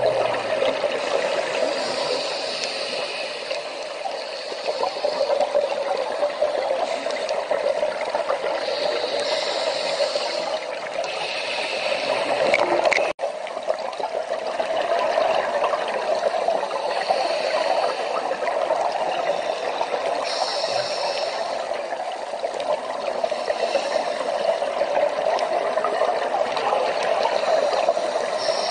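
Underwater ambience picked up by a dive camera: a steady rushing water noise, with short higher hissing patches every few seconds and a brief dropout partway through.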